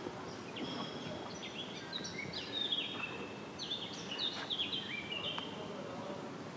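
Small birds chirping, a run of many quick short calls that stops about five and a half seconds in, over steady open-air background noise.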